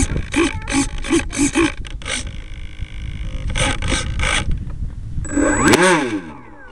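Onboard an RC plane on the ground: the servos buzz in a run of short pulses, about three a second, and then the electric motor revs up briefly and winds back down near the end, with a low rumble underneath until then.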